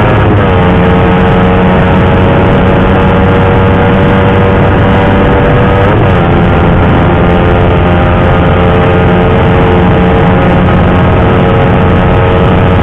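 Suzuki GSX-R150's single-cylinder engine running loud through an R9 Misano aftermarket racing exhaust, held at steady revs. Its pitch dips and climbs back briefly near the start and again about six seconds in.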